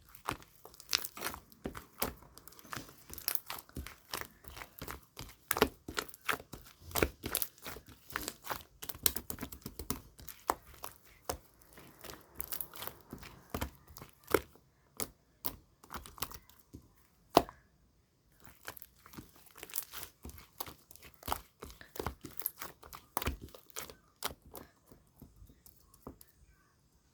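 Clear slime being squished and stretched by hand: a continuous run of irregular sticky clicks, pops and crackles, with one sharp louder pop and a brief pause about two-thirds of the way through.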